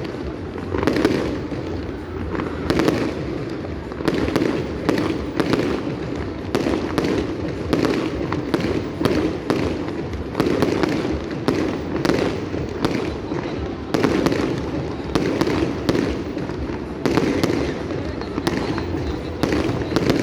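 Fireworks display: a long, irregular run of bangs and crackles, about one or two a second.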